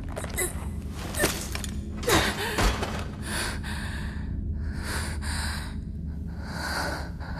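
A woman gasping for breath, three or four heavy breaths in the second half, over a low steady rumble. A few sharp clicks and knocks in the first half are the loudest moments.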